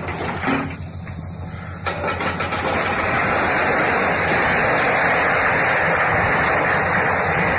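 Diesel locomotive engine running steadily, with a side-dump railcar tipping and unloading its load: about two seconds in, a loud steady rushing noise starts and holds.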